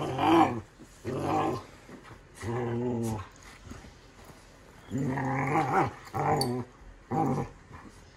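Poodles play-fighting, with a series of about six short growls, each half a second to a second long, the longest and loudest about five seconds in.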